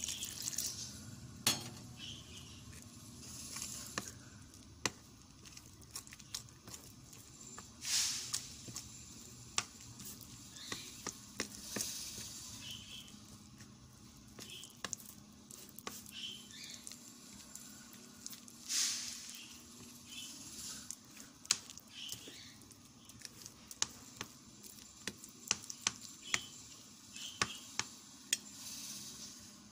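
Metal spoon stirring flour and water into a thick batter in a ceramic bowl: frequent sharp clinks of the spoon against the bowl, with wet scraping swishes every few seconds.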